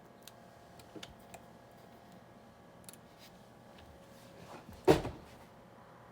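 Light clicks and rustling of small parts being handled at a table, then one loud knock about five seconds in, like something set down hard.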